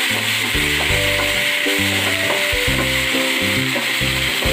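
Sliced onions, ginger-garlic paste and green chillies sizzling in hot oil in a nonstick wok as they are stirred with a wooden spatula, being fried until the oil separates. Background music with a steady beat plays underneath.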